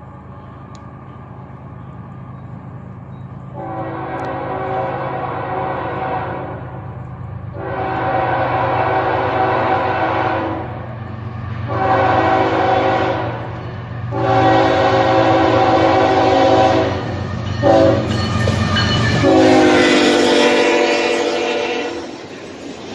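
Locomotive's multi-chime air horn sounding the long, long, short, long grade-crossing signal over a low engine rumble that grows as the train approaches. The last long blast drops in pitch as the locomotive passes.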